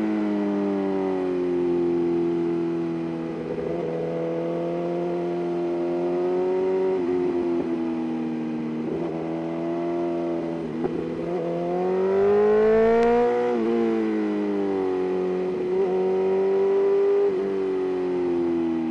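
BMW S1000RR's inline-four engine running at speed, its exhaust note rising and falling with the throttle and briefly breaking a few times. The note climbs to its highest pitch about thirteen seconds in, then drops away.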